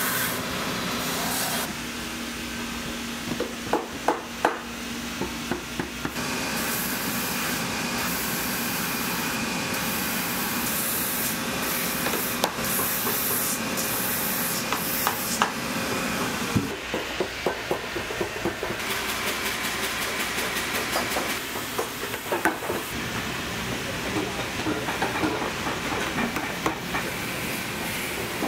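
A quick run of boot-workshop sounds: a shoe-finishing machine running with a steady hum and hiss, then scattered taps and clicks of tools on leather, and a stretch of fast, even ticking about two-thirds of the way through.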